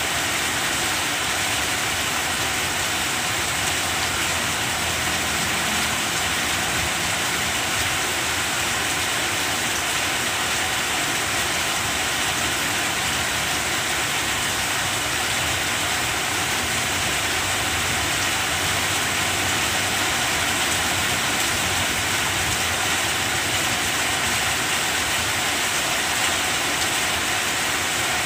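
Steady rain falling on banana plants, an even, unbroken hiss of rainfall.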